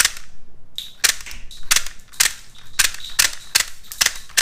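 Plastic toy Glock 17 with built-in blowback, its slide cycling over and over and ejecting a plastic dummy shell each time. It makes a series of about eight sharp plastic clacks, roughly two a second, as the loaded rounds are fired off.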